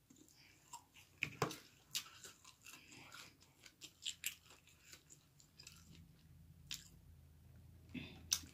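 A person chewing and biting into spicy chicken wings: irregular small crunches and mouth clicks, fairly quiet.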